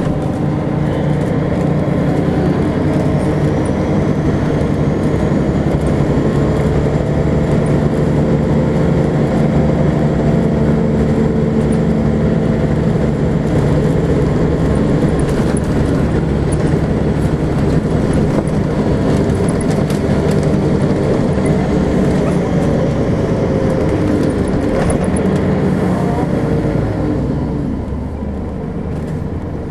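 Volvo B10BLE single-decker bus's rear-mounted six-cylinder diesel engine running under way, heard from inside the passenger saloon. A faint high whine rises about two seconds in, holds, then fades away a little after the middle. The engine note drops near the end as the bus eases off.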